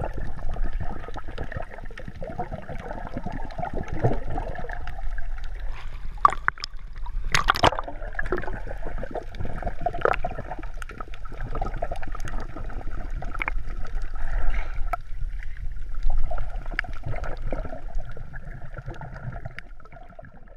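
Muffled water sloshing and gurgling heard from underwater, with scattered clicks and crackles and one sharper knock about seven and a half seconds in; the sound fades out near the end.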